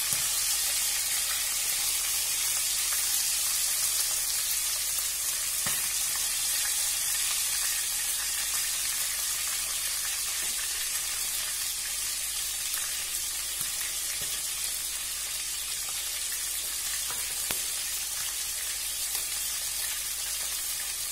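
Masala-marinated chicken drumsticks sizzling steadily as they shallow-fry in oil in a non-stick wok, with a few faint clicks scattered through.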